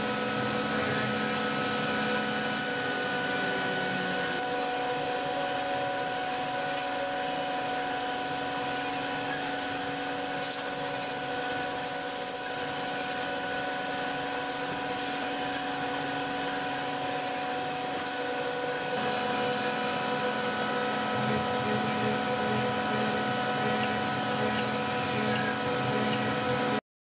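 CNC router spindle running with a steady whine made of several even tones over a hiss. Two short high hisses come around the middle, and the sound cuts off suddenly near the end.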